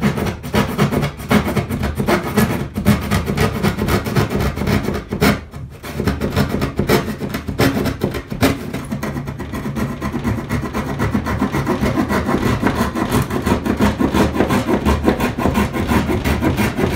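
Saw cutting through an OSB board wall in quick, steady strokes to cut out a square opening, with a short pause about five seconds in.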